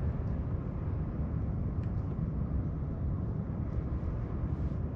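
Steady low rumbling outdoor noise with a few faint light clicks.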